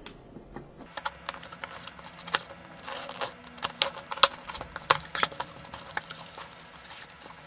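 A cardboard shipping box being cut open with a knife and its flaps pulled apart: irregular scraping, crinkling and sharp clicks of blade, tape and cardboard.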